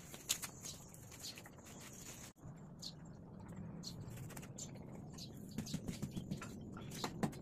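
A young dog digging and nosing in loose dirt: a soft, scratchy patter of soil with many small ticks. The sound cuts out briefly a little over two seconds in.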